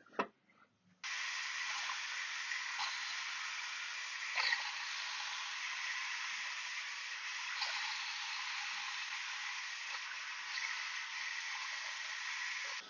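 Steady hiss of a lathe tool cutting a steel bar held in the collet chuck of a Myford Super 7 lathe. It starts suddenly about a second in, with a few faint ticks along the way.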